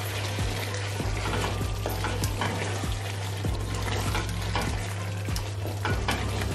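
Wooden spatula stirring and scraping through thick chicken biryani gravy in a stainless steel pot, with frequent short clicks of the spatula against the pot over the hiss of the gravy cooking on the hob.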